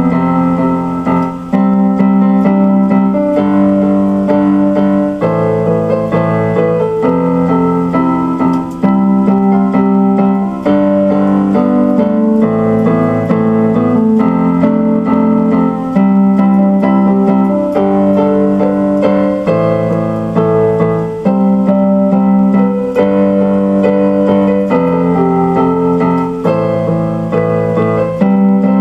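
Instrumental electric piano music, with sustained chords changing every second or two.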